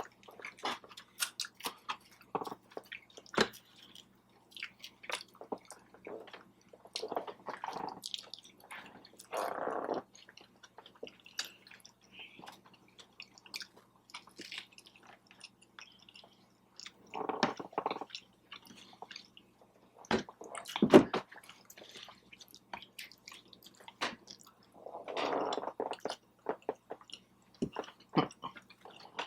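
Close-up chewing of a venison sloppy joe slider: steady wet, squishy mouth sounds and small clicks, with a few louder, longer mouth noises scattered through.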